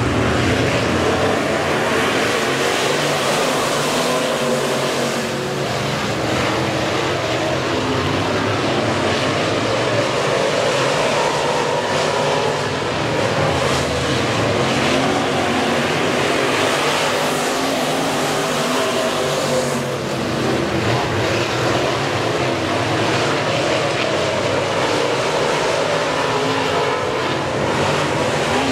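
Dirt-track race car engines running hard at speed, with their pitch rising and falling as the cars throttle and pass.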